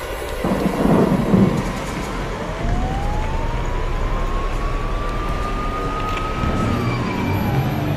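A siren wails once: a single tone rising slowly for about four seconds, holding briefly, then falling near the end, over a steady low rumble. A short, loud rush of noise comes about a second in.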